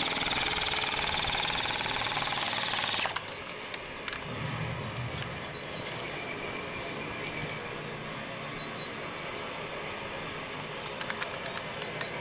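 Airsoft electric gun firing a rapid full-automatic stream for about three seconds, cutting off suddenly. After that, quieter outdoor ambience with a few faint scattered clicks.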